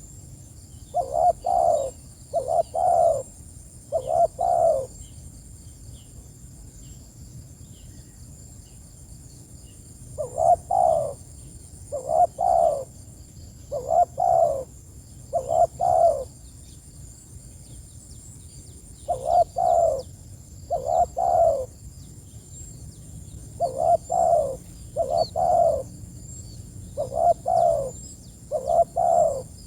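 Spotted dove (tekukur) cooing: phrases of three or four coo notes repeated in bouts, with pauses of a few seconds between bouts. Faint high chirps of small birds sit behind it.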